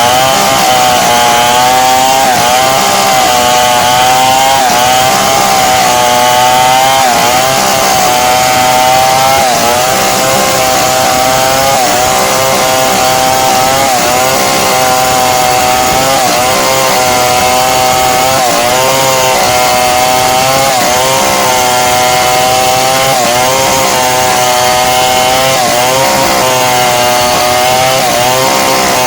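Two-stroke chainsaw running at high revs as it cuts lengthwise through timber to make beams and boards, its pitch dipping briefly and recovering every second or two as the chain takes load.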